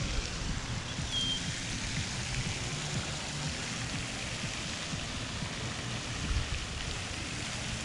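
Steady rushing of running water, with a short high chirp about a second in.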